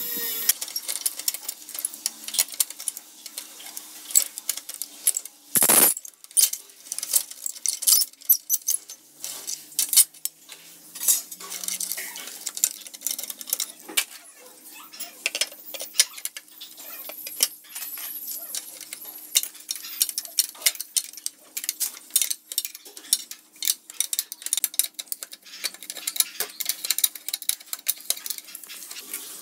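Irregular metal clinks and knocks of hand tools and rusty steel motorcycle parts being handled and struck during disassembly, with one louder strike about six seconds in. A faint steady hum runs underneath.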